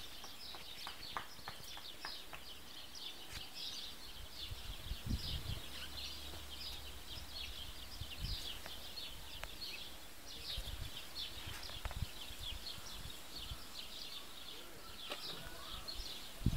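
A faint, continuous chorus of rapid high chirps from outdoor wildlife, with a few soft low thumps on the microphone.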